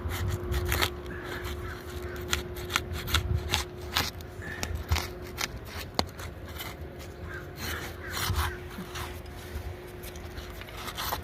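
Old, brittle asphalt shingle being pried loose from the one beneath: irregular crackling, scraping and tearing as the sealed tab pulls apart. The bond is so strong that the shingle's mat is tearing and staying stuck to the course below (excessive mat transfer).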